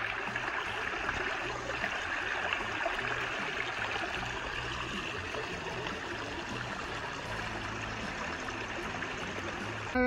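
Small waterfall on a woodland brook: water splashing and trickling steadily over rocks into a pool.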